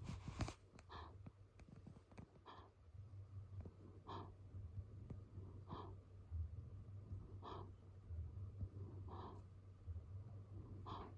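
Snoring: short, wheezy snoring breaths repeating about every second and a half, seven in all, over a faint steady low hum. A brief louder rustle sounds at the very start.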